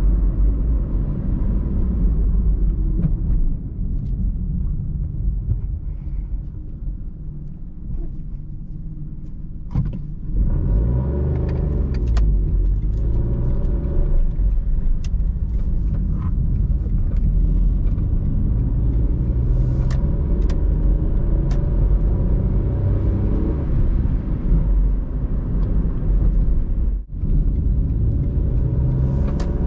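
Opel Corsa C's 1.0-litre three-cylinder petrol engine and road noise heard inside the cabin. The sound eases off while the car slows, then about ten seconds in the engine picks up and pulls, rising in pitch as the car accelerates, with a brief drop near the end.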